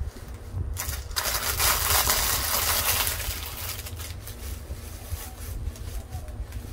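Dry craft moss rustling and crunching as it is pressed down by hand over plastic-bag filler in a bucket, loudest for about two seconds near the start, then softer rustles, over a steady low hum.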